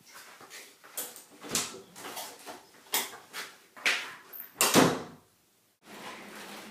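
A string of sharp knocks and bumps, about two a second, the loudest a hard bang about five seconds in. The sound then cuts off, and a steady rumble of a wheeled cart rolling on a concrete floor starts near the end.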